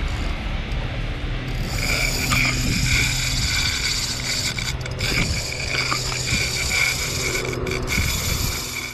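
Spinning fishing reel being worked against a hooked fish, a steady mechanical whirring with a pulsing high whine from about two seconds in.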